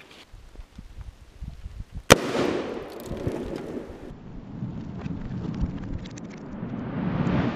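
A single sharp blast about two seconds in, followed by a long rumbling noise that builds up again toward the end.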